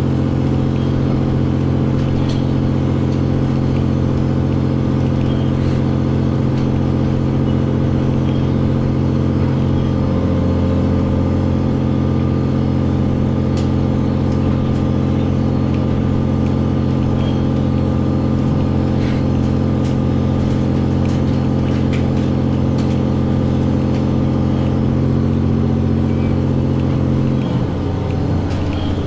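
Cabin sound of a JR Hokkaido H-100 DECMO diesel-electric railcar under way: a steady engine-generator drone with a buzzing rattle from something vibrating somewhere in the car. The steady drone drops away about a second and a half before the end.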